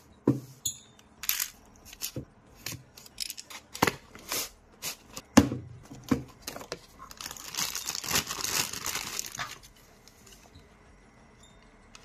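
Toy packaging being opened by hand: the cardboard box and plastic packaging give a run of sharp clicks and taps. Then, from about seven seconds in, plastic wrapping crinkles and tears for about two and a half seconds.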